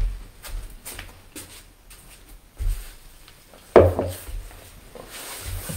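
Thuds and knocks of a person moving about on a wooden floor and settling down to sit, with clothing rustling; the loudest knock comes a little under four seconds in.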